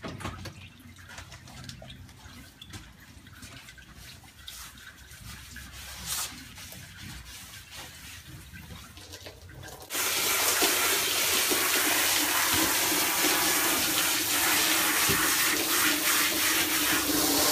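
Quiet handling sounds as a horse's tail is lathered with shampoo by hand, then a garden hose starts spraying water suddenly about ten seconds in, a steady loud rush splashing through the tail hair onto a rubber stall floor, with a faint low hum under it.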